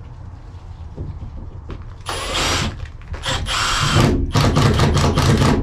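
Cordless impact driver driving self-tapping screws through plywood into the metal truck bed: two runs of about half a second starting about two seconds in, then a quick series of short bursts.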